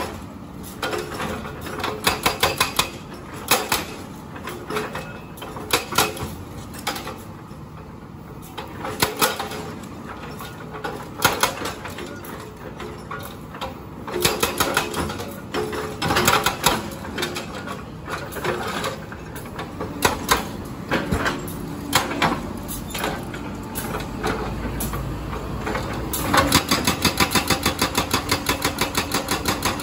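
Hydraulic breaker on a Komatsu PC200 excavator hammering concrete road pavement in bursts of rapid, evenly spaced blows, over the steady running of the excavator's engine. Near the end the hammering runs without a break.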